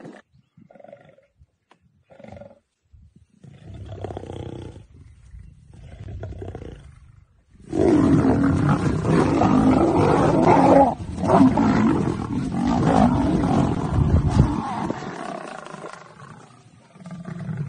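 Lions snarling and roaring in a fight, loud and continuous from about eight seconds in until it fades after about fifteen seconds. Before that there are only short, scattered growls.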